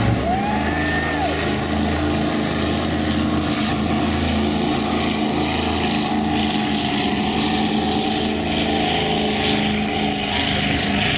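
Offshore racing powerboat's engines running hard as the boat accelerates away, a steady engine tone under the rushing of water and wind.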